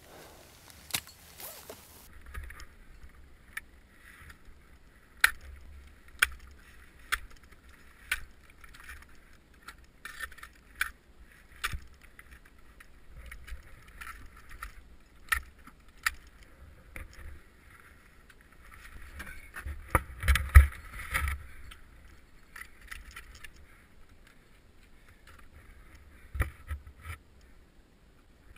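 Ice axe striking snow and ice as a climber moves up, with climbing gear clinking: a series of sharp knocks roughly a second apart, a denser loud cluster about twenty seconds in, over a low rumble.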